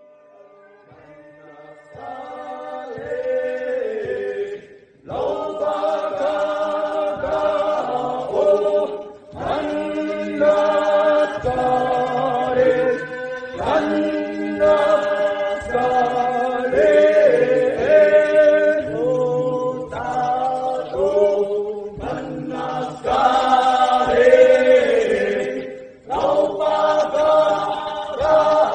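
Traditional Bunun chant sung by a group of voices in close harmony, holding long notes in phrases that break off briefly every few seconds. It begins faintly and swells in about two seconds in.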